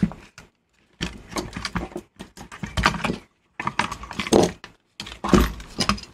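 Metal and plastic parts of a Mitsubishi HS-700 VCR's tape-transport mechanism clicking and clattering as they are handled and lifted apart. It comes in several bursts of rattling, starting about a second in.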